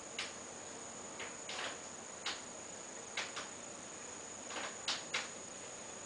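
Sharp AY-28H air conditioner outdoor unit: a steady hiss with a thin high whine, broken by about nine irregular sharp ticks.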